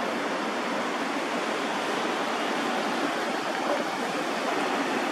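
Steady rushing noise of a street outdoors, with no distinct events standing out.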